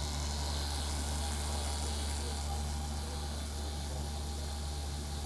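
Blender driven by a 1/4 horsepower three-phase AC induction motor on a variable-frequency drive, running steadily as it spins a glass jar of slush, with a low, even motor hum.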